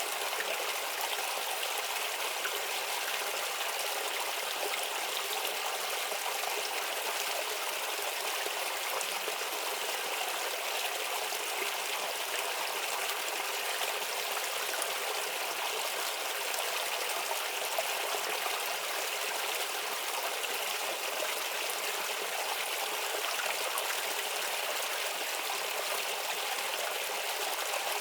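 A shallow stream babbling steadily over stones, an even rushing and trickling of water with no rise or fall.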